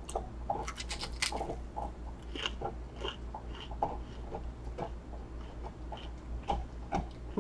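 Biting into and chewing a deep-fried crab rangoon: a string of irregular, crisp crunches from the fried wonton wrapper.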